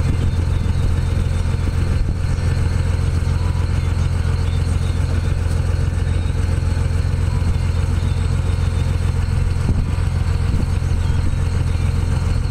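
Vehicle engine and road noise: a steady low drone that holds even throughout.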